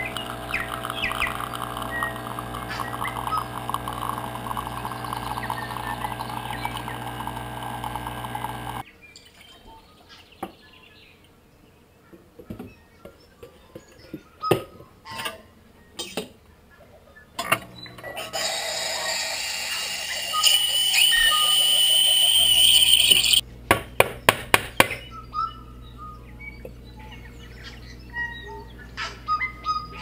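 Home espresso machine's pump humming steadily as espresso pours, cutting off about nine seconds in, followed by scattered clinks and knocks. Later the steam wand hisses for about six seconds as milk is frothed in a steel pitcher, with a high whine coming in partway through, then a quick run of sharp taps and a few light clinks.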